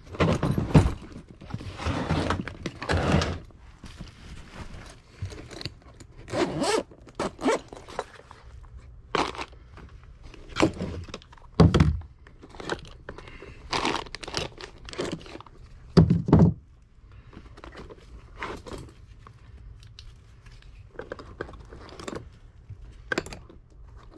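Irregular knocks, thumps and scrapes of hand tools and a tool bag being handled and set down on the attic decking, the heaviest thumps about a second in and twice later on.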